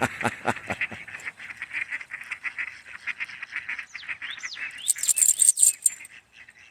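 Ducks squabbling, a rapid run of short raspy quacks and chatter among two competing pairs and extra drakes, with a brief louder burst of higher noise about five seconds in.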